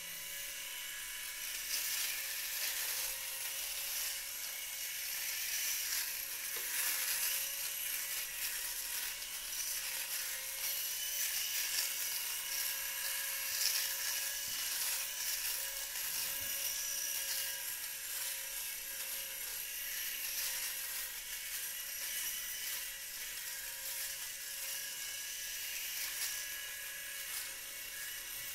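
Rotary electric shaver running steadily with a constant motor whine, its cutting noise shifting a little as the head moves over the stubble of the cheeks and chin.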